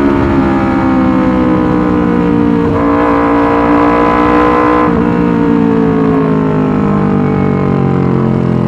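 Yamaha R25 250 cc parallel-twin engine running through a loud Racefit Slash aftermarket exhaust. The engine note sinks slowly, jumps back up sharply about three seconds in and again about five seconds in, then sinks again.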